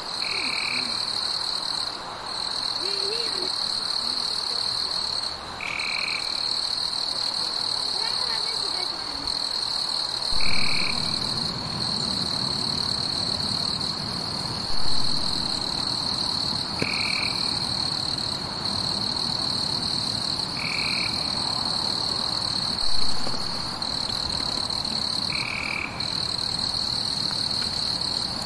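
Insects trilling: a continuous high-pitched shrill that breaks off briefly every few seconds, with a short lower chirp every four or five seconds. A few louder bumps come through, about ten, fifteen and twenty-three seconds in.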